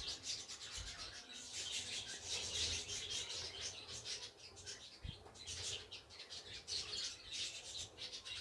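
Milk simmering in a pan as it curdles with lemon juice into chhena, giving a faint crackling, bubbling hiss of many tiny ticks. A few soft low thumps near the start and about five seconds in.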